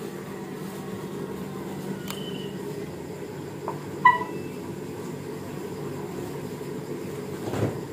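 A steady low mechanical hum from a running household machine. A few light clicks and one short ringing clink sound about four seconds in, and a soft thump comes near the end.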